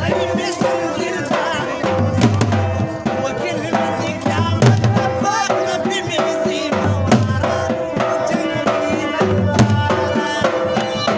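Two dhol drums beaten with sticks in a steady attan dance rhythm, with a loud melody that bends and wavers in pitch playing over them.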